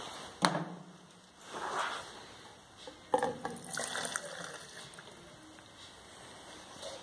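A sharp knock about half a second in, then clear kerosene-solvent mixture poured from a plastic measuring cup into a metal paint can, splashing and trickling for a second or two from about three seconds in.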